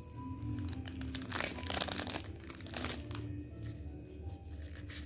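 Paper memo pads and their packaging rustling and crinkling as they are handled, in a burst from about one to two seconds in and again briefly near three seconds, over soft background music.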